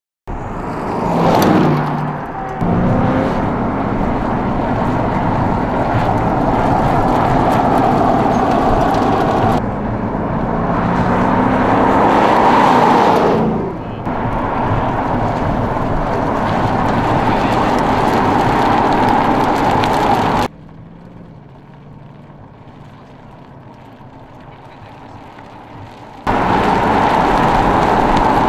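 2015 Ford Mustang GT's 5.0-litre V8 running as the car drives along an open road, over several edited shots. Twice, about a second in and again near the middle, the engine note drops in pitch as the car passes by. A quieter stretch of steady running comes about two-thirds of the way through.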